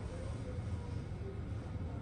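Hot air rework station blowing steadily while reflowing solder balls onto a CPU through a reballing stencil: a continuous fan-like rush over a low hum.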